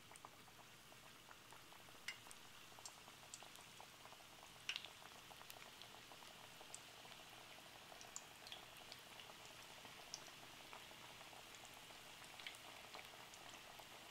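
Spinach pakora patties of gram-flour batter frying in hot oil: a faint, steady bubbling sizzle with many small crackles and a few sharper pops.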